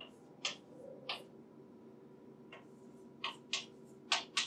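Chalk tapping and scratching on a blackboard as symbols are written: short sharp taps, two in the first second or so and a cluster of four near the end. A faint steady room hum runs underneath.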